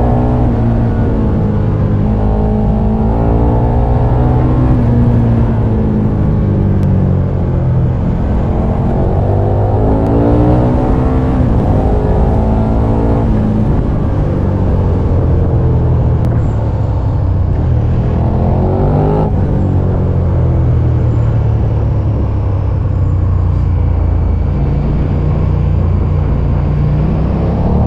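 KTM 1290 Super Duke R's V-twin engine under way. Its pitch climbs under acceleration and drops back at each gear change or roll-off, several times over.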